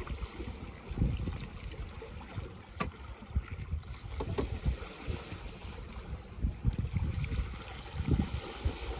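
Wind buffeting the microphone in uneven gusts over water rushing past the hull of a small sailboat under way, with a single light click about three seconds in.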